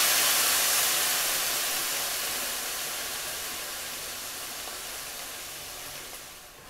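Soy-sauce and sake glaze sizzling hard in a hot frying pan with pork and onions, just after being poured in; the hiss fades steadily as the sauce heats and reduces, then drops away sharply near the end.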